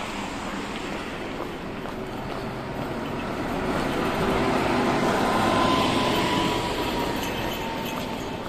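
A city bus driving past: the engine and tyre noise grows over a few seconds, peaks around the middle, then fades, with a faint whine that drops slightly in pitch as it goes by. Steady traffic noise from the road underneath.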